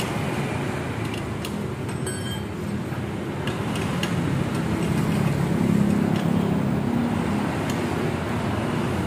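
Strong wind blowing, a steady low rumble that swells about halfway through. A few faint metallic clicks come from a wrench tightening a scooter's exhaust mounting bolts.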